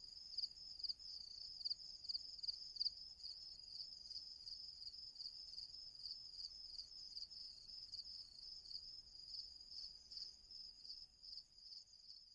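Crickets chirping: a high, rapidly pulsed trill of about four chirps a second, steady throughout and fading near the end.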